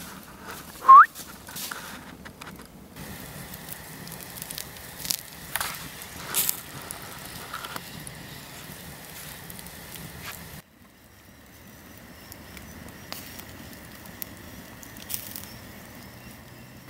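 Campfire crackling with scattered sharp pops, and one short, loud rising squeal about a second in.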